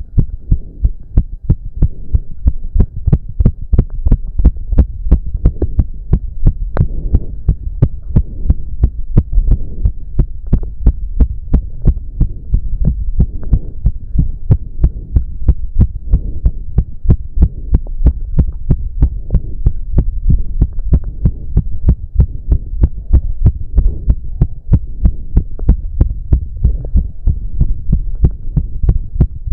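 A man's heart pounding fast and regularly, racing from an intense cardio workout: quick, even thumps over a steady low hum.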